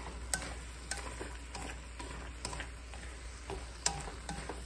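Bitter melon and egg being stir-fried in a wok: a faint steady sizzle under irregular clicks and scrapes of wooden chopsticks tossing the food against the pan.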